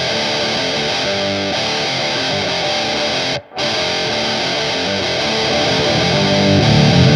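Electric guitar (Epiphone 335 with a PAF bridge pickup) in drop D tuning playing a heavy, distorted riff through a Digitech Grunge distortion pedal. The riff breaks off briefly about three and a half seconds in and starts again. Near the end it grows louder and heavier in the bass as the pedal's LOW knob is turned up.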